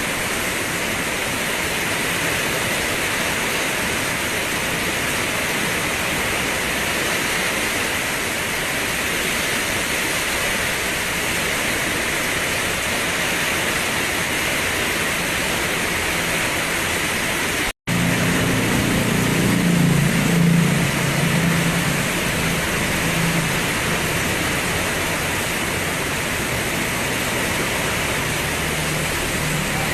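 Steady rain falling, a dense even hiss. About 18 s in the sound cuts out for a split second, then a low rumble joins it, swelling for a few seconds and slowly fading under the rain.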